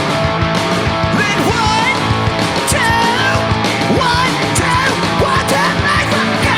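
Punk rock band playing loud and live: distorted electric guitars and driving drums, with a high sliding lead line coming in about a second in.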